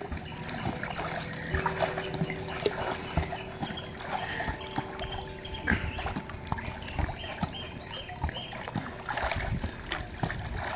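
Swimming-pool water splashing and sloshing as a Blue Heeler and a woman bat a beach ball back and forth, with short sharp slaps of the ball and small vocal noises from the dog.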